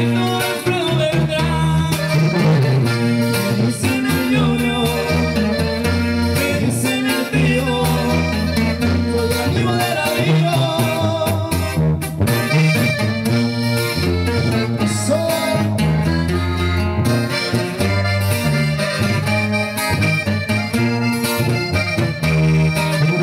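Live band playing a corrido: button accordion carrying the melody over tuba bass notes and strummed acoustic guitar.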